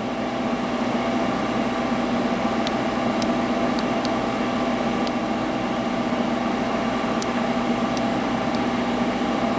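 Hydraulic power unit of a HOSTON CNC press brake running steadily at idle, a constant hum with several steady tones, with a few light clicks scattered over it.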